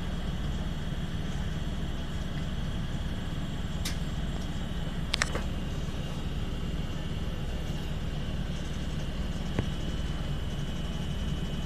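An old IBM PS/1 PC running with its failing Maxtor 7120AT hard drive spinning: a steady low hum and a steady high whine. Three short sharp clicks come at about 4, 5 and 9.5 seconds.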